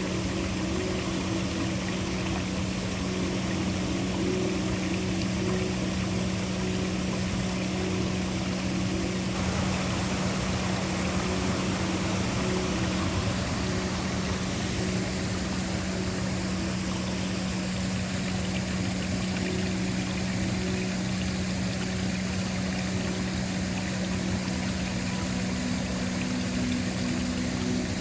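Waterfall: a steady, even rush of falling water, with a low, steady ambient drone held underneath it.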